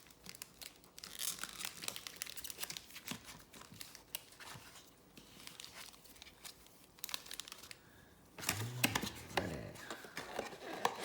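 Plastic wrapping being torn and crinkled by hand as a sealed trading-card box is opened, in irregular crackles and rips. A brief low sound near the end.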